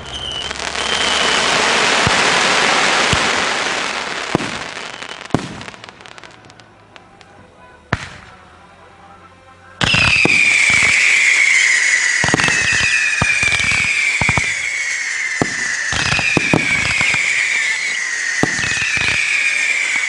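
Consumer fireworks going off. A dense crackle fades out over the first few seconds with a few scattered pops, then it goes fairly quiet. About halfway through, a loud volley of whistling fireworks begins abruptly: a falling whistle roughly every two seconds over a run of sharp bangs.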